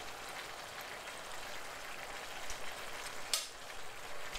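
Minced beef and vegetable keema mixture simmering and sizzling in a frying pan as its juices cook down to nearly dry, with a steady crackle. A single sharp click about three seconds in.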